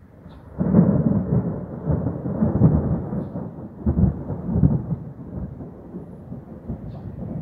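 Thunder rumbling: it breaks in suddenly under a second in, rolls on with several louder swells, then slowly fades away.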